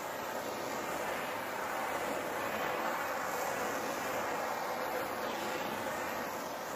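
Hand-held propane torch burning with a steady hiss as its flame is swept over wet epoxy resin to pop the surface bubbles.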